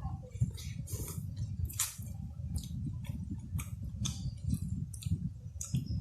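Close-up chewing and mouth sounds of someone eating spicy papaya-style salad with rice noodles and seafood: steady wet chewing with frequent short, sharp clicks and smacks.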